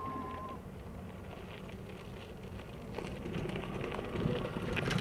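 Zero electric dual-sport motorcycle on a dirt track: its electric motor whines steadily and then fades out under a second in. This is followed by the crunch and crackle of its tyres over gravel and dirt, which grows louder from about three seconds in, and a lower whine comes back near the end.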